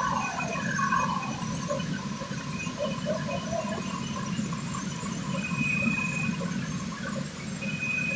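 Steady low rumble of a steel-melting shop while hot metal is poured from a crane-held ladle into a converter. A repeated falling warning tone sounds in about the first second.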